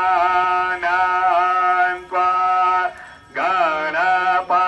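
A male voice sings a Hindu devotional chant in long held phrases over a steady drone, with short breaks between phrases.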